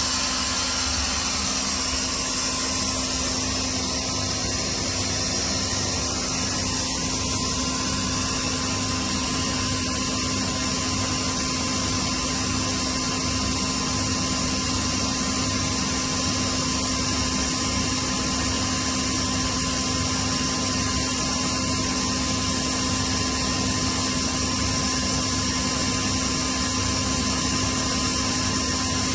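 Kaeser SK22 oil-injected rotary screw air compressor running steadily: an even mechanical hum and rush of air with a constant low drone and a steady higher whine.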